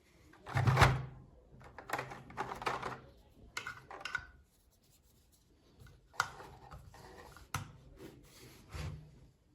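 Handling noise: scraping, rubbing and several sharp clicks as an object is handled close to the microphone, with the loudest bump just under a second in and a quiet pause midway.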